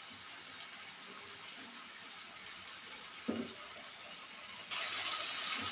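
Chicken, onions and mushrooms sizzling in a frying pan on a gas burner as the mushrooms give off their water: a faint, steady hiss that turns suddenly into a much louder sizzle near the end.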